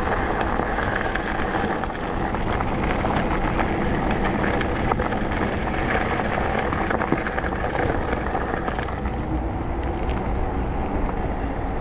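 Electric mountain bike tyres crunching over a gravel path at riding speed, with wind buffeting the camera microphone. The crunching grows smoother about nine seconds in, as the bike rolls onto asphalt.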